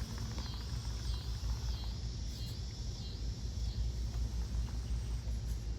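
Quiet outdoor ambience: a faint insect call pulsing about one and a half times a second over a steady low rumble.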